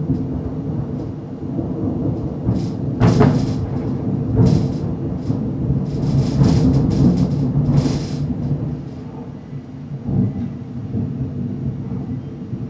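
Thunder rumbling through a thunderstorm, with several sharp crackles in the first two-thirds, then dying down to a lower rumble near the end, over rain.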